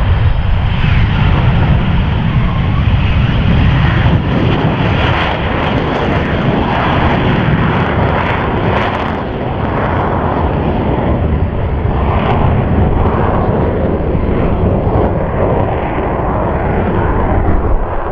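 F-35B Lightning II's F135 jet engine at takeoff power, with the lift fan engaged, as the jet lifts off in a short takeoff and climbs away. The noise is loud and steady, with a rough, crackling edge.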